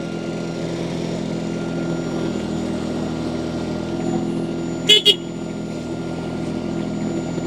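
Mini skid steer loader's diesel engine running steadily. About five seconds in come two short, sharp high-pitched sounds close together.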